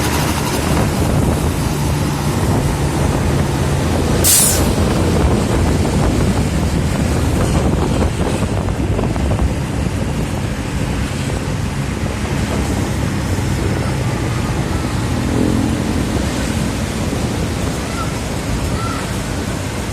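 Heavy road vehicle, likely a bus, running steadily with traffic and road noise. A short air-brake hiss comes about four seconds in.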